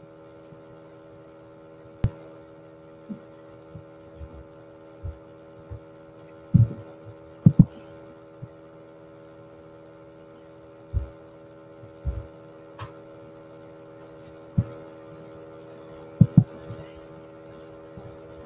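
Steady hum with several fixed tones, broken by irregular dull low thumps every second or two, twice in quick pairs, like knocks or bumps against a microphone or desk.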